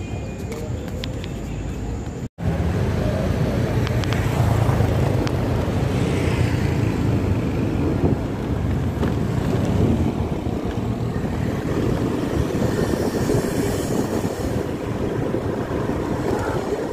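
Urban street traffic: a steady rumble of cars and motorbikes running and passing. There is a brief dropout about two seconds in.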